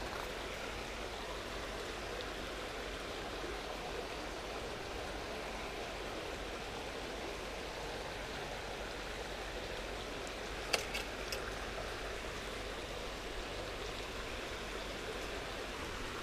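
Steady rushing of flowing river water. About two-thirds of the way through, a few light clicks sound close by.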